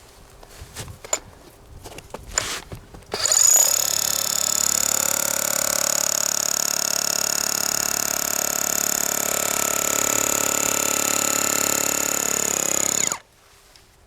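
Makita HR400D cordless hammer drill running steadily for about ten seconds, starting suddenly a few seconds in and cutting off abruptly, boring into the ground. Before it starts there are a few light knocks.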